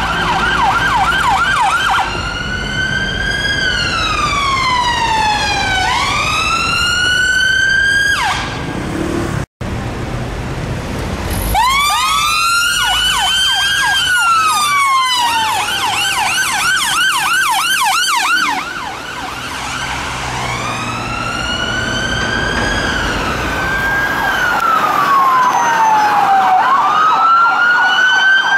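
UK ambulance and police van sirens, switching between the slow rising-and-falling wail and the rapid yelp, at times two sirens overlapping. The sound cuts out briefly about a third of the way in.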